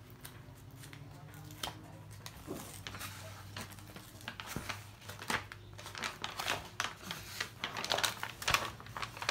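The plastic release film and paper of a diamond painting canvas crinkling as the canvas is handled and spread out by hand. The crackles are irregular and get busier about halfway through.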